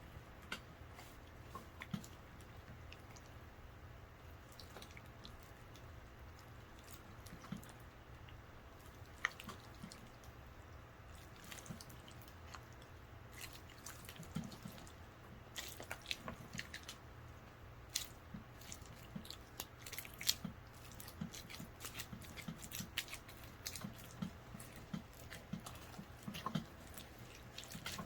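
Clear slime being stirred and worked as it activates, giving faint, scattered wet, sticky clicks and squelches that come thicker and louder from about halfway through.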